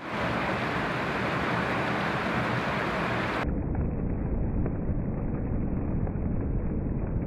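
Heavy rain falling, a steady hiss of drops on pavement and leaves. About three and a half seconds in, the sound suddenly turns dull and low: the rain slowed down along with the slow-motion footage.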